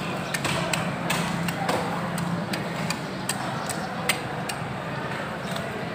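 Irregular sharp taps and knocks of knife blades on wooden chopping blocks, about ten in a few seconds, over a steady low hum.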